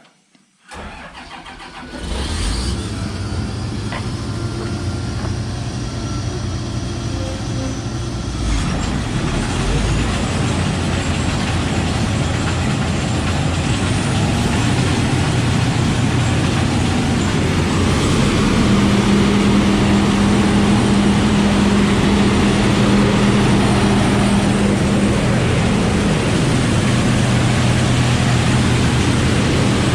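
John Deere combine starting up about a second in and coming up to speed, getting louder around eight seconds in. It settles into a loud, steady run with a low engine hum under a heavy rush of air from the newly installed Crary Wind System fan.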